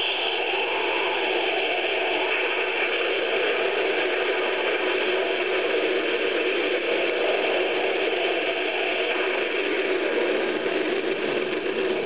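Sound effect from a Halloween mini strobe light's small built-in speaker: a steady, even hiss.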